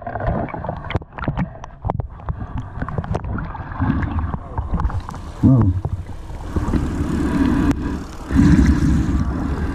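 Water sloshing and splashing around a camera held at the surface, dipping under and back out, with many small knocks and clicks. The sloshing grows louder and rougher in the second half.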